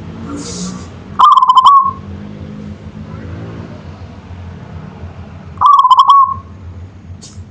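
Zebra dove (perkutut) cooing twice, about four seconds apart. Each coo is a short, rapidly pulsed, rolling call of about two-thirds of a second, over a low steady background rumble.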